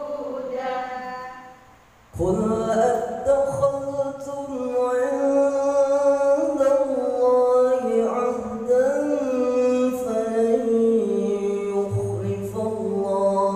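A man's voice chanting Qur'anic recitation (tilawah) in a melodic style, with long held notes that waver and ornament in pitch. He pauses briefly for breath about two seconds in, then carries on loudly.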